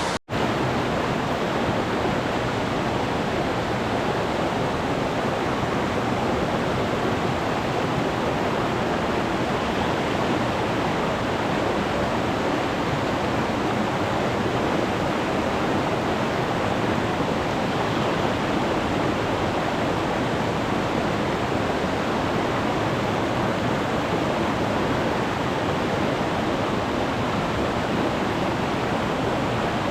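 Mountain stream running high and fast after typhoon rain: a steady, even rush of water. A brief cut-out just after the start.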